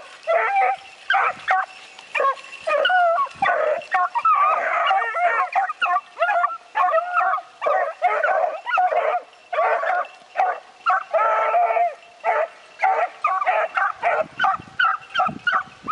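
A pack of rabbit hounds baying and yelping as they run a rabbit's track, with several voices overlapping in a steady string of calls. The calls come shorter and more spaced out near the end.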